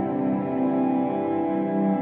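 Background music of long, steady held chords.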